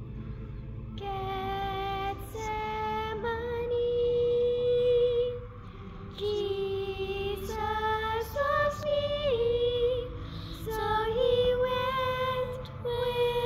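Two girls singing a slow devotional song together, holding long notes with small slides between them, with a short breath pause about halfway.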